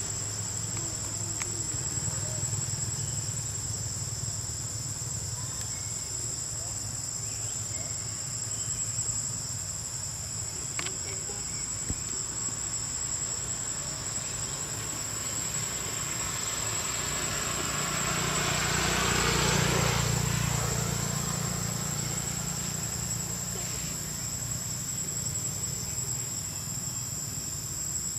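Insects droning with a steady high pitch, over a low traffic rumble. About two-thirds of the way through, the noise of a passing motor vehicle swells and fades.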